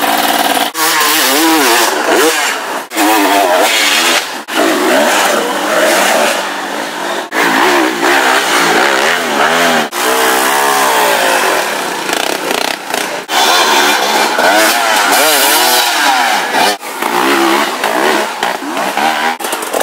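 Enduro dirt bike engines revving hard and unevenly on a muddy climb, the pitch rising and falling over and over with sudden cut-offs as the throttle is blipped and shut.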